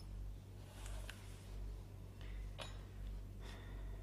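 Plastic snap clips of a Samsung Galaxy Tab 3 tablet's cover giving a few sharp clicks and scrapes as a thin opening tool pries around the edge, over a steady low hum.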